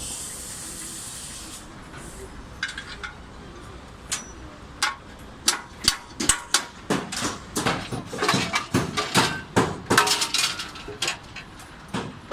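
Metal hammer blows and clinks on aluminium formwork panels, with short ringing; scattered at first, then coming several a second through the second half. A brief hiss at the start.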